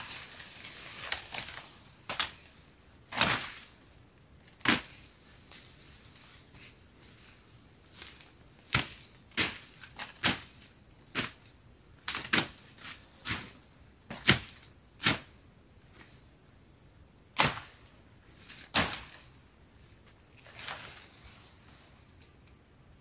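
Machete strokes slashing through undergrowth, sharp and irregular at about one or two a second, with a pause of a few seconds near the start. A steady high insect drone sounds behind them, joined by a second, lower insect tone through the middle.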